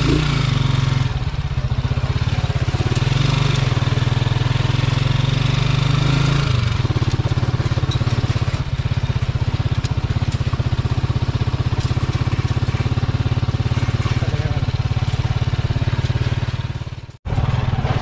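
Small motorcycle engine running steadily while riding along a rough dirt road. Its low note shifts about six and a half seconds in, and the sound drops out for a moment near the end.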